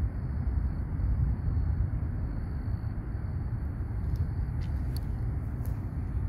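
Wind buffeting the microphone as a steady, uneven low rumble. A faint thin high whine fades out about halfway, and a few faint ticks come near the end.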